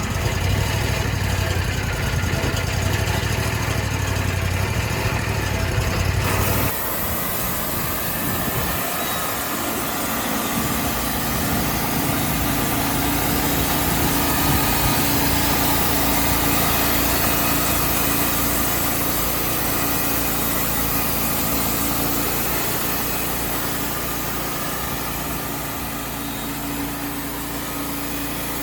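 Wood-Mizer portable band sawmill running, its engine going steadily. About six seconds in the sound changes abruptly and then stays steady.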